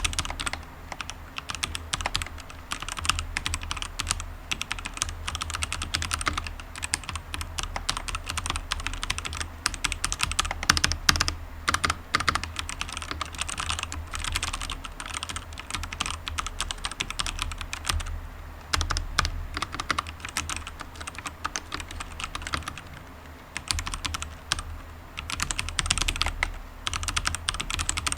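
Typing on a Durgod K620W mechanical keyboard with Kailh Red linear switches and PBT keycaps. Rapid, continuous clacking of keystrokes, broken by a few short pauses.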